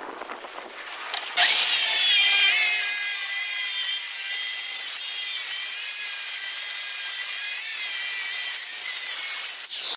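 Corded circular saw starting about a second and a half in and cutting through a sheet of phenolic-resin and fiber skateboard ramp surface, a steady motor whine over the cutting noise. It stops just before the end.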